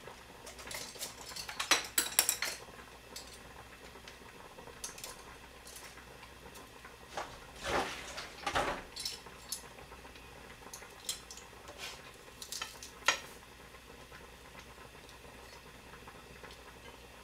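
Kitchen utensils and dishware clinking and knocking as they are handled on a countertop: several short clusters of clatter, the loudest about two seconds in.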